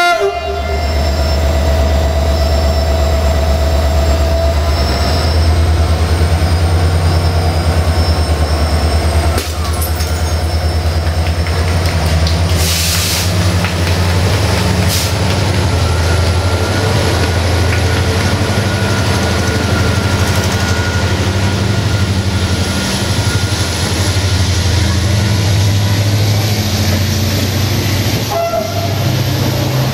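Diesel-electric locomotive's engine running, a loud steady low rumble with a slow pulse, as the train pulls out. A horn cuts off right at the start.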